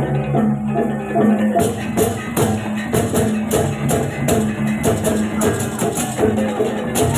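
Loud music with a steady beat: pulsing low tones under a bending melody. About one and a half seconds in, sharp cymbal-like strikes join at roughly three a second.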